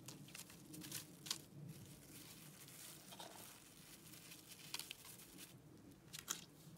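Faint, scattered crinkles and rustles of a clear plastic bag being handled and pressed flat, several short separate rustles a second or so apart.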